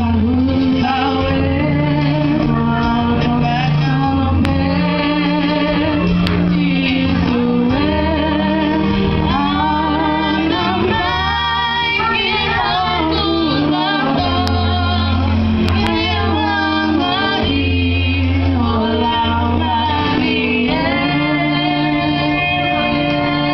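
Female voices singing a song live through microphones over an electronic keyboard accompaniment with a steady, sustained bass line.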